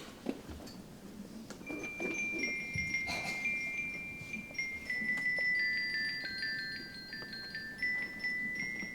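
Children playing a soundscape on tuned metal percussion: ringing notes come in about a second and a half in and step slowly downward in pitch, each note sustaining under the next.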